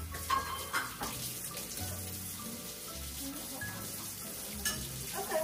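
Water running from a tap into a sink, with a few light knocks, over background music with a low bass line.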